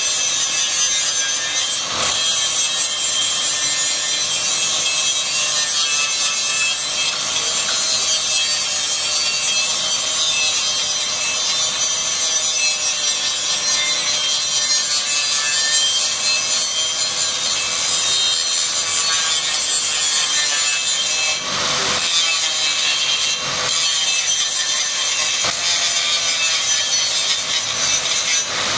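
Electric angle grinder with a thin cut-off disc grinding into the wall of a steel pipe, a loud steady grinding with a whine that wavers in pitch as the disc is worked into the metal. Two brief jolts in the sound come about three-quarters of the way through.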